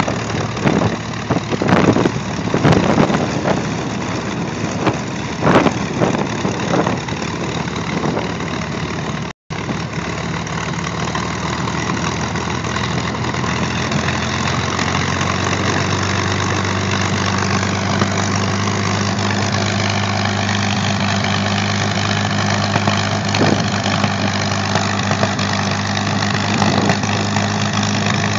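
P-51 Mustang's Packard Merlin V12 engine running at low power with the propeller turning as the fighter taxis and turns. The first third comes in gusty surges, the sound drops out briefly, and in the second half the engine settles into a steady low drone.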